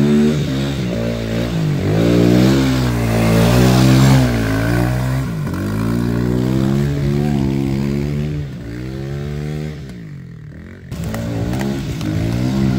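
Dirt bike engine revving up and down over and over as it churns through a mud hole, with mud and water splashing. The engine drops back about eight seconds in and cuts back in abruptly about three seconds later.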